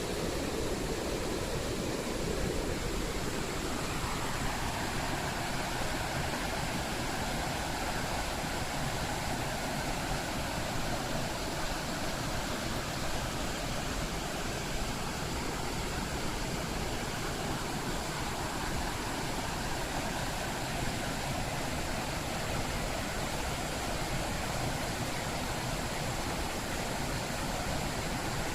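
Whitewater rushing steadily over rapids. About four seconds in, the rush shifts to a higher, hissier pitch.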